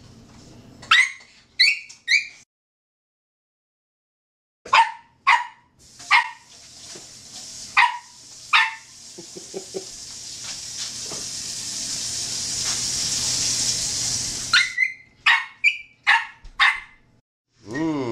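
A Yorkshire terrier gives short, high yips and barks in quick clusters of three to five, begging for food being prepared. In the middle, a steady hiss grows louder for about five seconds and then stops suddenly.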